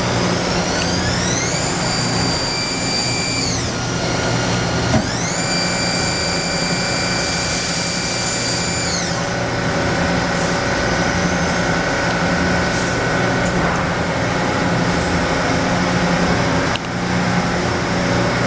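CNC lathe spindle motor whining up to speed, holding a steady pitch, then winding down, twice, over a constant machine hum; a sharp click about five seconds in and another near the end.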